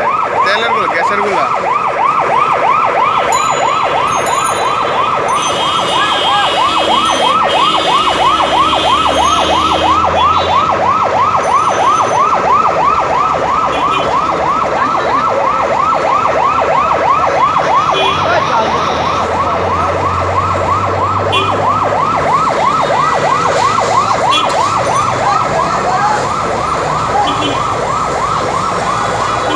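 Fire engine siren sounding a continuous fast yelp, its pitch sweeping up and down rapidly over and over. Underneath it, a low engine rumble comes and goes.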